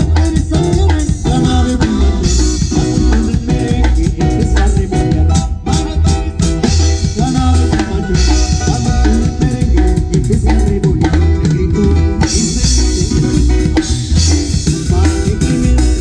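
Loud music led by a drum kit, with a steady bass line and a regular beat.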